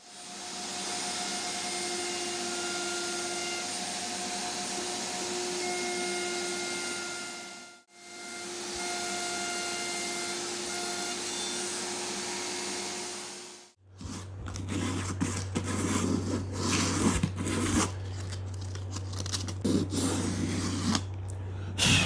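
Router table spinning a roundover bit, cutting a rounded edge on a round wooden disc: a steady whine and hiss, broken once briefly about 8 s in. About 14 s in it gives way to a sanding pad rubbed by hand over the disc's edges in quick scratchy strokes, over a low hum.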